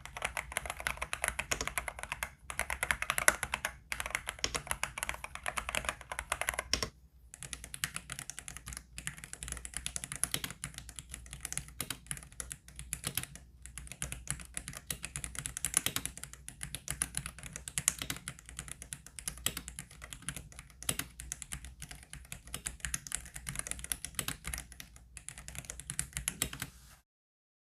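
Fast typing on a Dareu A98-series gasket-mount mechanical keyboard, a dense run of key clicks. After a brief pause about seven seconds in, the clicks go on thinner and brighter, then stop shortly before the end.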